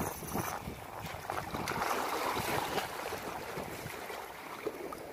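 Small waves splashing and washing against the rocks of a breakwater, with wind blowing on the microphone.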